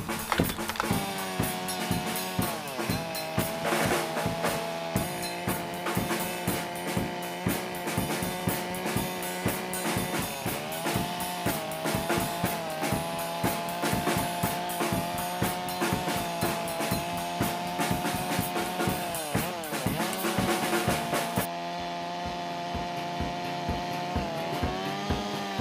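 Small carving chainsaw running and cutting into wood. Its engine pitch dips under load several times and comes back up, with a rapid rattling knock throughout.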